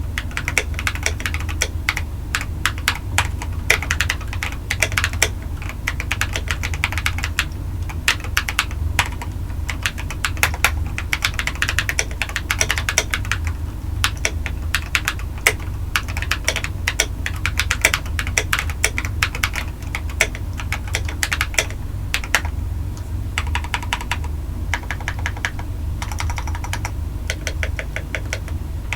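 Continuous typing on a full-size Redragon K551 mechanical keyboard, modded with tape, foam and tuned stabilisers and fitted with lubed Akko Rose Red linear switches and MT3 keycaps. It gives a dense run of keystroke clacks with occasional louder strokes.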